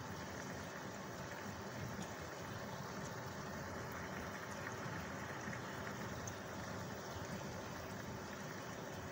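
Steady bubbling, running-water noise of a fish tank.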